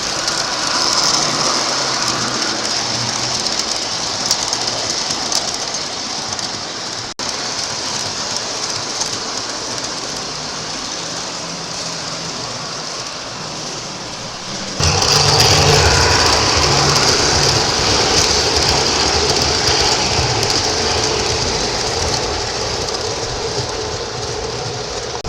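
Lionel O-gauge model subway train running on three-rail track, a steady rolling hum and wheel noise. It gets suddenly louder and fuller about fifteen seconds in.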